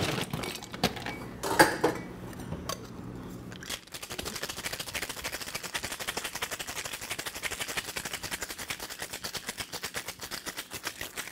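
A few sharp knocks from a copper cocktail shaker being readied, then, from about four seconds in, a fast steady rattle of ice inside the shaker as it is shaken hard.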